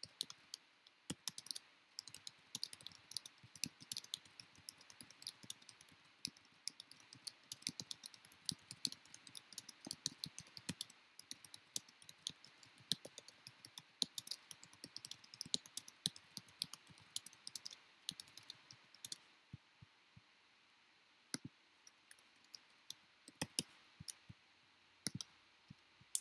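Typing on a computer keyboard: a quick, uneven run of key clicks that stops about nineteen seconds in, followed by a few scattered clicks.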